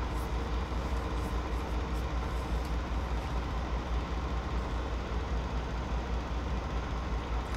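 Low, steady drone of an idling semi-truck engine heard from inside the cab.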